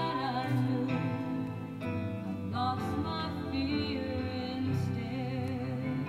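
A woman singing a slow, tender song over instrumental accompaniment, holding long notes with vibrato.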